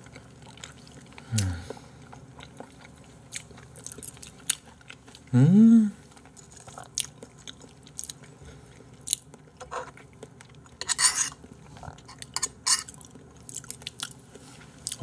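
A person chewing salmon close to a microphone, with scattered wet smacks and clicks. Two short hummed voice sounds break in, a faint falling one near the start and a louder rising one about five seconds in.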